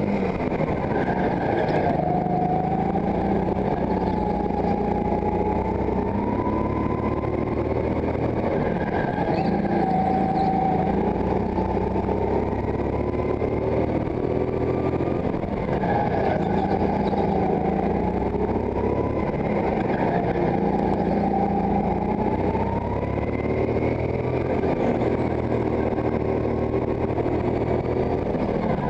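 Go-kart engine heard onboard at racing speed, its pitch climbing on the straights and dropping into the corners, over and over through the lap.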